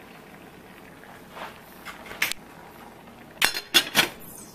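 A few faint clicks, then a stainless steel saucepan lid clinking sharply three or four times against the pot rim near the end as it is set on.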